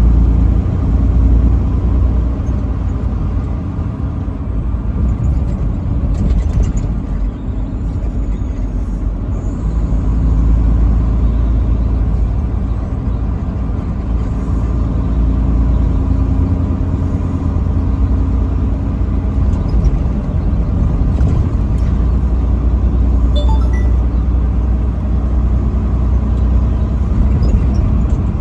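Steady engine and road rumble of a vehicle driving on the highway, heard from inside the cab, with a low drone throughout.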